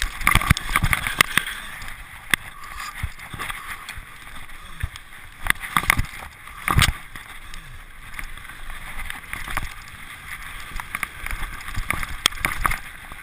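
Mountain bike rolling fast downhill over rocky trail: tyres crunching and rattling over stones, the frame and parts clattering, with sharp knocks from hits, the loudest about seven seconds in. Wind buffets the helmet camera's microphone.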